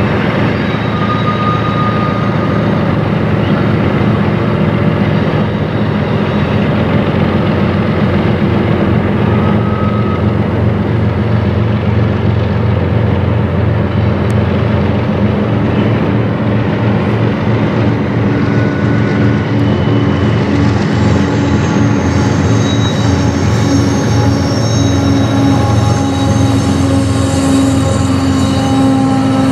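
Two GE diesel-electric freight locomotives, a CP ES44AC leading a UP AC45CCTE, working past with a steady engine drone and the rumble of the train on the rails. In the last third, thin high wheel squeals join in.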